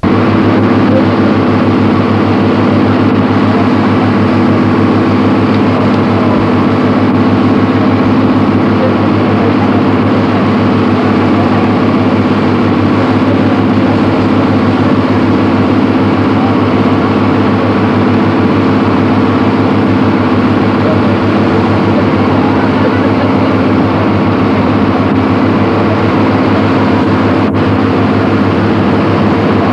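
A harbour boat's engine running at a constant speed, a steady drone heard from on board.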